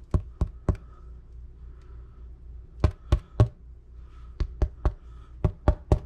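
The bottom crust of a freshly baked sourdough loaf thumped by hand, a hollow thump in four quick sets of three. The hollow sound shows the middle is baked through and not doughy.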